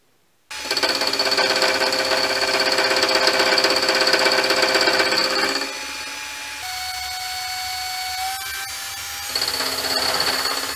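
A metal lathe cutting an aluminium plate, with a cutter turning in the chuck and a cordless drill on the leadscrew driving the feed. The loud spells with the drill running come about half a second in, lasting some five seconds, and again near the end. Between them the lathe runs on more quietly with a steady whine.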